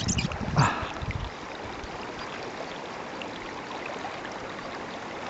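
Steady rush of river water, with a few low bumps and a brief louder burst of noise in the first second or so.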